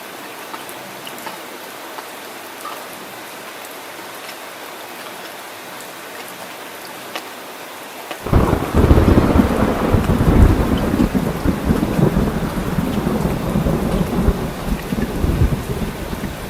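Heavy rain falling with a steady hiss, then about halfway through a loud, deep rumble of thunder breaks in suddenly and rolls on over the rain.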